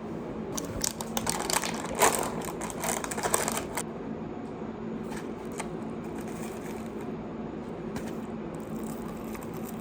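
Rapid clicking and clinking of utensils against a dish for a few seconds, then only a low steady hum with an odd tick.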